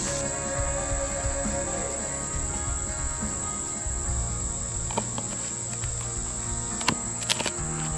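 Steady high-pitched chirring of insects in summer woodland. Near the end, a few sharp clicks as a knife cuts through a crisp pizza crust on a wooden board.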